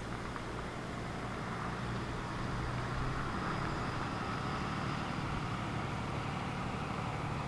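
A truck driving along a road, its engine a steady low drone.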